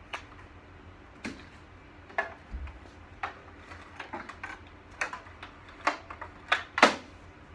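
Irregular clicks and light knocks of cables and plastic parts being handled on a computer cart, about a dozen scattered ones, the loudest near the end.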